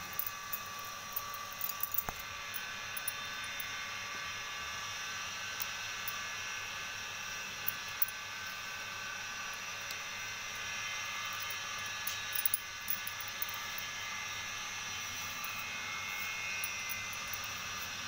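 Steady machine-like hum with several high steady tones. Small clicks and light rustles come and go over it as a cloth towel is rubbed over a parrot, with a cluster in the first two seconds and more near the middle.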